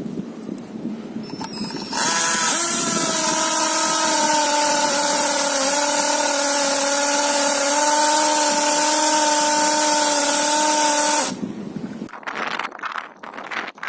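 LOMVUM compact hammer drill's motor running at a steady speed for about nine seconds, starting about two seconds in with a brief settling of pitch and stopping suddenly near the end. Light handling clatter before and after.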